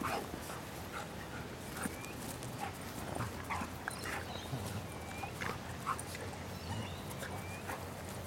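A White Shepherd and an Australian Kelpie pup play-fighting, with short, irregular yips, grunts and scuffles scattered throughout.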